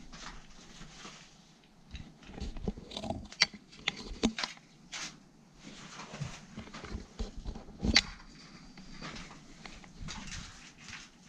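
Irregular scuffs, knocks and clicks of someone moving about in a small stone room: footsteps and handling noise, with two sharp clicks standing out, about three and a half and about eight seconds in.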